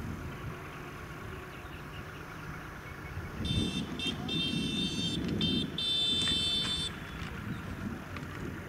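Approaching EMD diesel locomotive: a low engine rumble, then a run of horn blasts starting about three and a half seconds in, several short toots followed by a longer blast.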